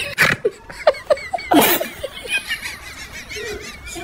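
People laughing in short, choppy bursts.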